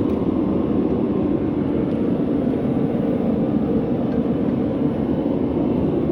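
Steady low drone of running blacksmith-shop equipment, with no hammer blows.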